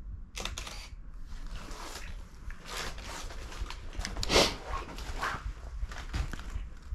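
A film camera being handled on a small tripod and fired: a string of mechanical clicks and rustles, the loudest about four seconds in.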